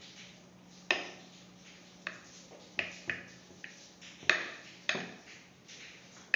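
Metal spoon clinking and tapping against a glass baking dish while thick doce de leite is spooned out: about seven sharp, irregular clicks, the loudest a little past four seconds in, over a faint steady hum.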